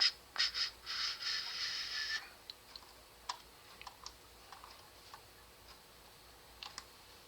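Computer mouse and keyboard clicks while working in CAD software: several sharp clicks, a quick rattle of clicks lasting about a second, then scattered faint clicks.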